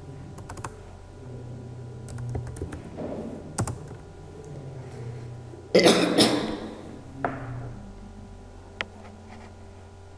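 Typing on a computer keyboard: scattered keystrokes, with a louder clatter of keys about six seconds in.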